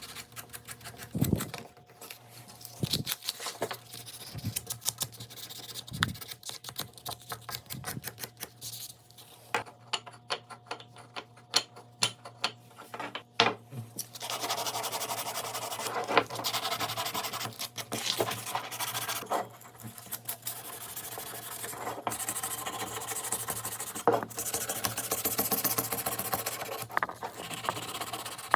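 Hand work on wood: a run of light clicks and knocks, then from about halfway a rasping scrape of something rubbed over wood in long strokes with short breaks.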